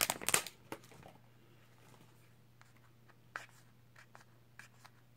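Thin plastic protective film crinkling as it is peeled off a smartphone, loud over the first half second, then a few faint light clicks and taps as the phone is handled, over a faint steady low hum.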